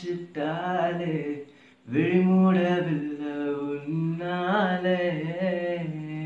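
A man singing unaccompanied: a short phrase, a quick breath about a second and a half in, then one long held line with wavering ornaments on the notes.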